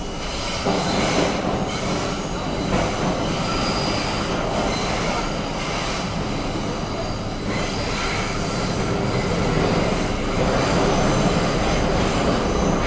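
New York City Subway train running through a tunnel, heard from inside the front car: a steady, continuous noise of wheels on rail.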